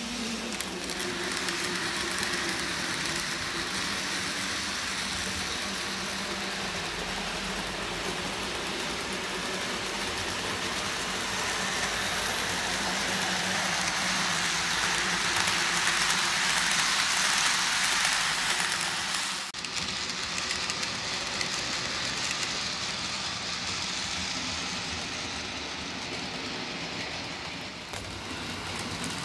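N gauge model train, a Dapol Class 33 locomotive hauling coaches, running along the track with a steady rolling hiss and a faint motor hum. It grows louder as the train passes close, then drops suddenly about two-thirds of the way in.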